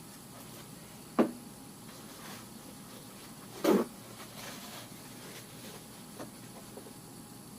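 Handling noise: two short knocks about two and a half seconds apart, the second a little longer, with a few faint ticks and rustles between.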